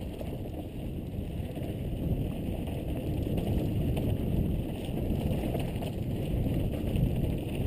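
Mountain bike riding fast down a dry dirt trail: steady tyre rumble over dirt and rocks with small knocks from the bike, under wind buffeting the helmet camera's microphone.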